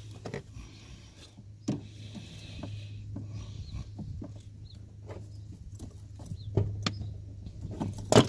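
Scattered clicks and knocks of hands and fittings as a diesel heater's fuel line is pulled off and a new one pushed on, over a steady low hum.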